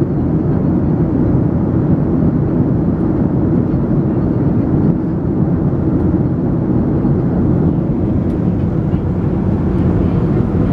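Steady jet airliner cabin noise: an even, low rumble of engines and rushing air heard from inside the cabin.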